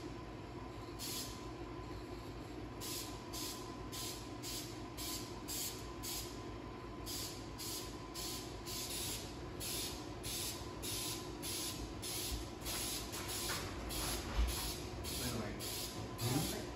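Aerosol spray-paint can hissing in short bursts, one after another, as coats of paint go onto a spoiler wing. A steady hum runs underneath.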